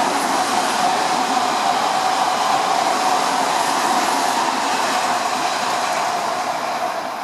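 An Odakyu electric commuter train running through a station at speed without stopping: steady loud rolling noise of wheels on rail with a steady hum, easing off near the end.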